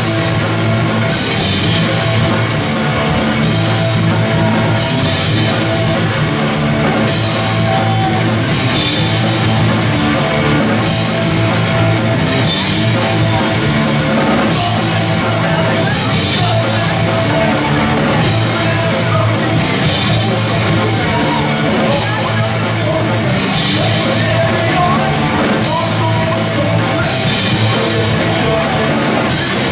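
Live punk rock band playing loudly: electric guitars and a drum kit, with vocals sung into a microphone.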